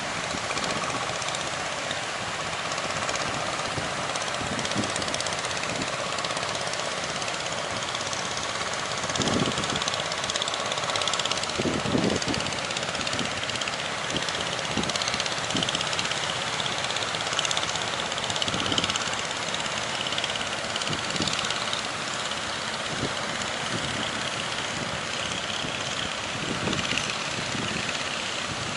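A fishing boat's engine running steadily, mixed with a constant rush of wind and sea, and low thumps of wind buffeting the microphone.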